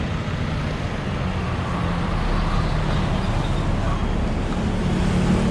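Motor vehicle engine running with steady road and traffic noise, a low engine drone under an even rushing noise.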